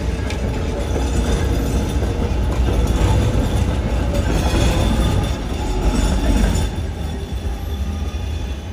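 GVB city tram passing close by: a steady low rumble of its steel wheels on the rails, fading about seven seconds in as it moves off.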